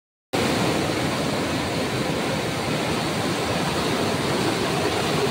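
Floodwater of a swollen river pouring in a fast, churning torrent over a breached road: a steady, loud rushing noise.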